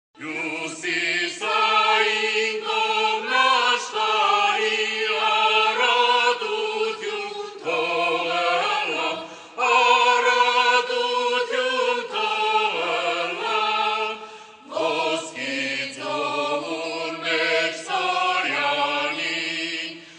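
Voices singing a slow, chant-like melody in Armenian, in long phrases broken by brief pauses.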